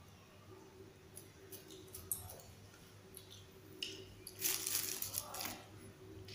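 Lamtoro (petai cina) leaf sprigs being handled and their leaflets picked off the stems by hand: faint rustles and small clicks over a steady low hum, with a louder rush of noise lasting about a second two-thirds of the way through.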